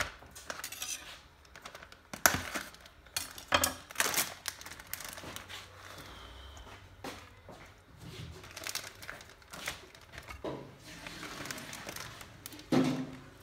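Kitchenware clattering: a large metal pan and dishes knocked and shifted while raw chicken pieces are laid in, a string of irregular clinks and knocks.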